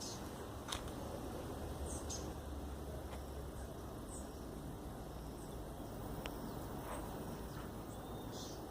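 Outdoor garden ambience: a steady low background noise with short, high bird chirps every few seconds and an occasional faint click.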